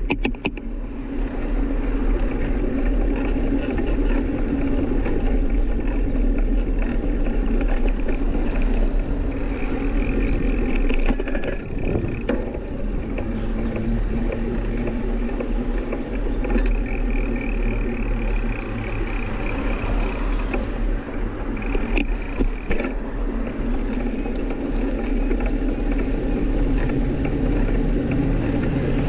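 Steady rushing road and wind noise of a bicycle ride, picked up by a GoPro Hero5 Black's microphone, with a strong low rumble that never lets up.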